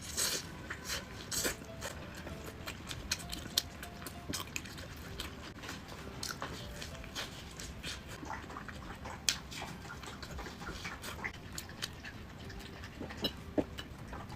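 A person chewing a chicken sandwich close to the microphone: irregular wet mouth clicks and smacks.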